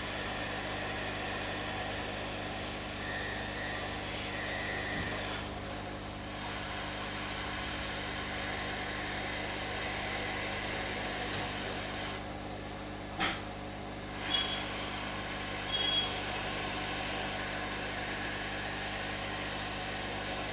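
Steady blowing hiss of a hot air rework station used to desolder a part from a laptop motherboard, easing off briefly twice. A few short clicks and brief high beeps come in the second half.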